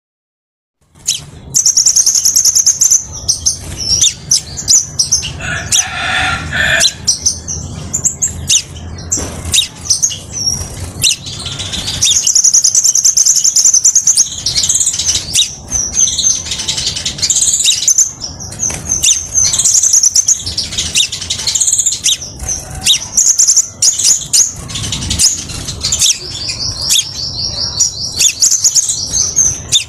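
Crimson sunbird singing: a long run of high, thin chirps and quick twittering trills, starting after a second of silence, with a fast even trill near the end.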